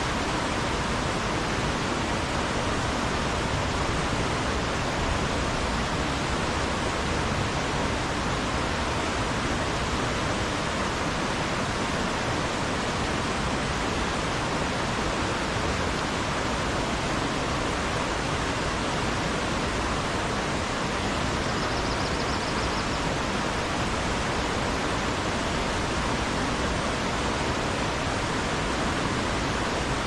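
Fast mountain river rushing through boulder rapids: a steady, unbroken rush of white water.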